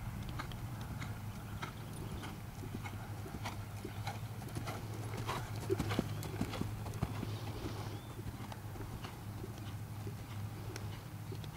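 Hoofbeats of a Thoroughbred gelding moving under saddle on grass turf, a run of irregular soft thuds and clicks. They are loudest around the middle, as the horse passes close by.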